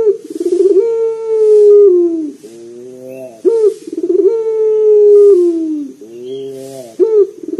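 Barbary dove (Indonesian 'puter lokal') cooing loudly in repeated phrases: each begins with a quick rolling burst, swells into a long held coo that falls away at its end, then trails into a few quieter, lower notes. Two full phrases are heard, about three and a half seconds apart, with a third starting near the end.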